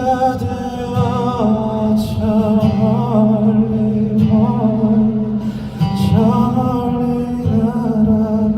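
Live band music with a wavering, sustained melody line, probably a male voice, over guitar and steady low accompaniment.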